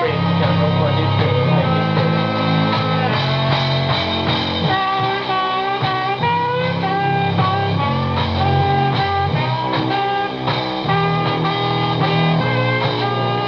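Rock music with electric guitar, playing loud and without a break.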